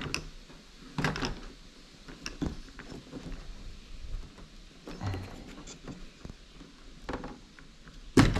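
Plastic clicks and knocks of a multi-cup suction camera mount being worked loose by hand, its release levers flipped and the cups rocked against the car's body. There are a handful of separate clacks, with the loudest one near the end.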